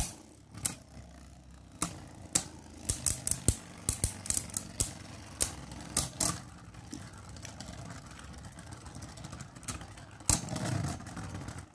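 Two Beyblade Burst spinning tops, Glide Ragnaruk and Perfect Phoenix, whirring in a plastic stadium and knocking into each other with many sharp clacks. The clashes come thick for about the first six seconds, then thin out to a few over the steady whirr.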